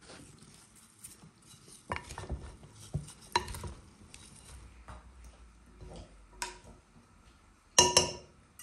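Wooden spoon stirring a chopped salad in a glass bowl: a soft wet rustle with scattered knocks of the spoon against the glass. Near the end comes a louder, brief clatter of the spoon on the dish as the salad is served.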